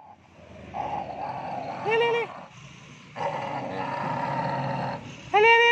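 Village dogs growling in a tense standoff, as a male dog snarls over another in mating-season aggression. The growl runs in two long stretches, and two short, sharp barks come about two seconds in and again near the end.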